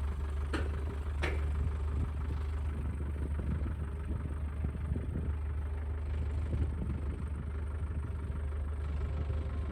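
An engine idling steadily, with two sharp clicks in the first second and a half.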